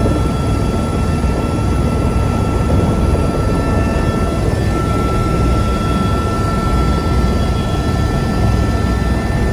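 Helicopter's turbine engine and rotor running steadily, heard from inside the cabin: a steady low rumble with a thin, high whine over it.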